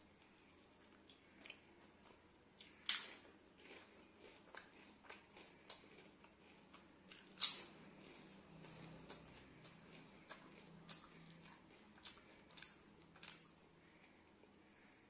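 Close-miked eating: chewing and biting with scattered sharp crisp clicks and crunches, the two loudest about three seconds in and seven and a half seconds in.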